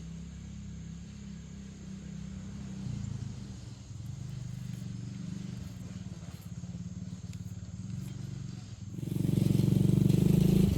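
Small gasoline engine running steadily, then getting much louder for the last couple of seconds before it cuts off.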